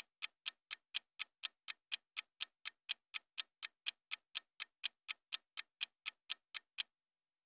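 Countdown timer's clock-ticking sound effect: sharp, even ticks at about four a second, which stop abruptly near the end.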